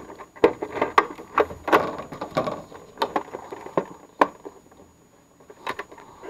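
Plastic condensate pump housing knocking and scraping against the side of a furnace as it is hung on its mounting screws: a run of sharp clicks and knocks, quieter for about a second near the end.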